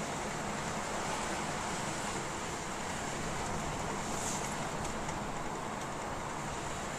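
Steady rush of strong wind and surf.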